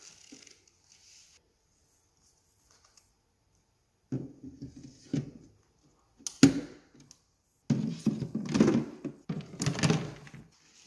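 Hard plastic knocks and clatter as the clean- and dirty-water tanks are set into a DreameBot L10s Ultra robot vacuum's base station. The knocking starts about four seconds in, with one sharp knock about six seconds in and a run of clattering near the end.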